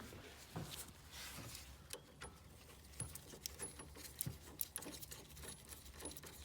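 Small metal parts clicking and clinking irregularly as steel nuts and Nord-Lock wedge-locking washers are handled and fitted onto sway bar end link studs, some clinks ringing briefly.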